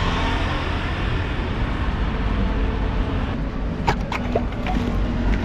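Steady road traffic noise, a low rumble with an even hiss over it. The hiss drops away a little over three seconds in, and a few sharp clicks and knocks follow about a second later.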